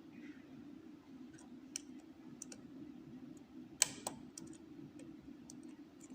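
Lock pick working the pins of a small padlock: scattered faint metallic clicks, with a sharper click and a second one just after the middle, over a steady low hum.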